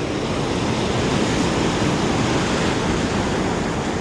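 Ocean surf breaking and washing in steadily around the feet, with wind on the microphone.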